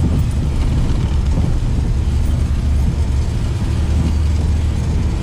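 Steady low drone of an SUV driving over sand dunes, heard from inside the cabin: engine and tyre rumble.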